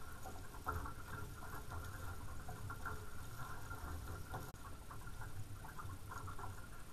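Water splashing and trickling against a sailing catamaran's hulls as it sails, heard as an uneven crackling patter over a low steady rumble.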